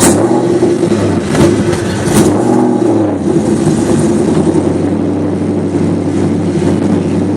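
Camaro's LQ4 6.0-litre V8 running while driving; its note shifts in pitch about two to three seconds in, then holds steady. Two short clicks come about a second and a half in and just after two seconds.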